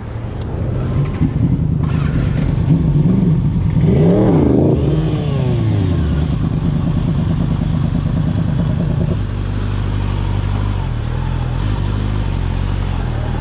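Sport motorcycle engine running under the rider at low speed. The revs rise and fall about four seconds in, then it settles to a steadier, lower note after about nine seconds.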